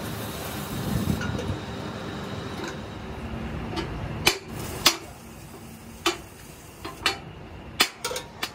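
Hammer blows on a steel wheel-rim band clamped in a four-jaw chuck: about eight sharp metallic strikes in the second half, coming faster near the end. A steady mechanical hum runs under the first half and drops away at the first strike.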